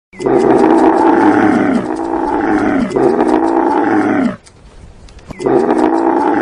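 Loud, drawn-out calls from a large animal, four in a row, each dropping in pitch at its end, with a pause of about a second before the fourth.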